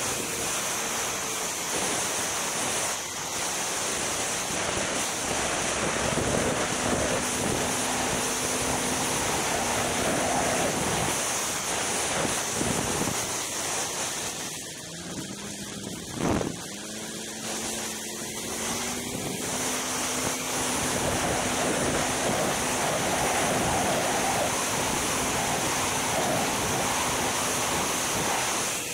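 Polaris Rush Pro R two-stroke snowmobile riding along a trail, with heavy wind rush over the microphone and the engine's drone beneath it. The engine note drops away near the middle and then climbs again as the sled speeds back up, and there is one sharp thump about sixteen seconds in.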